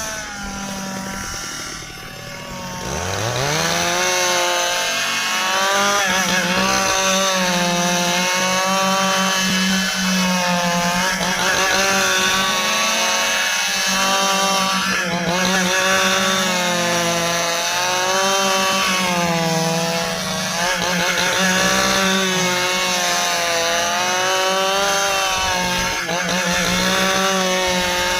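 Stihl two-stroke chainsaw cutting through hard, dry ipê wood. About three seconds in it is throttled up from a lower speed, then runs at full throttle with its engine pitch repeatedly sagging and recovering as the chain bites into the wood under load.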